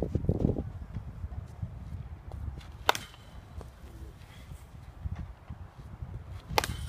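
Two sharp cracks of a wooden baseball bat hitting tossed baseballs, about three and a half seconds apart, over a low wind rumble on the microphone.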